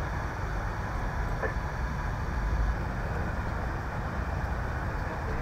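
Steady low rumble of idling vehicle engines and street noise, with no sudden sounds.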